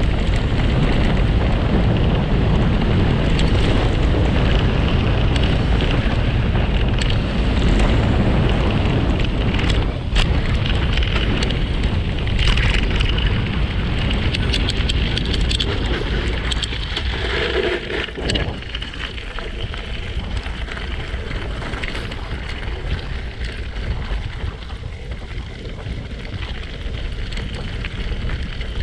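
Wind buffeting the microphone of a moving camera, with a rough low rumble of travel over a gravel road; the noise eases after about eighteen seconds.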